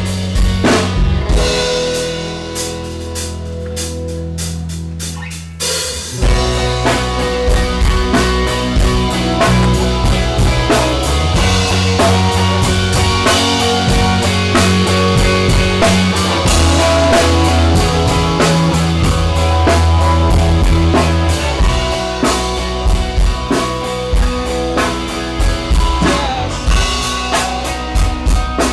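Rock music with drum kit and guitar. It opens with a quieter stretch of held low notes, and the full band comes in about six seconds in and plays on steadily with drum hits.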